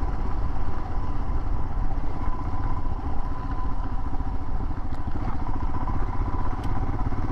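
Royal Enfield Himalayan's 411 cc single-cylinder engine running steadily while riding along in third gear, under a constant low rumble.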